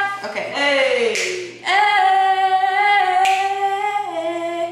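A woman singing a cappella, with no instruments: short sliding notes, then a long held note from about a second and a half in that drops to a lower note near the end.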